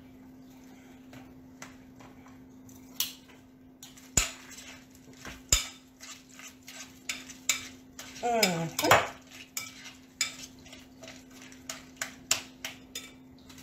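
A thick cream cheese and crab mixture being stirred in a glass mixing bowl: irregular clicks, taps and scrapes of the utensil against the glass, with two louder knocks a few seconds in.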